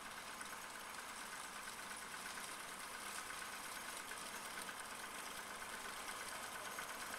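Tractor engine running steadily while pulling a working reaper-binder through oats. It is faint and grows slightly louder as it comes closer.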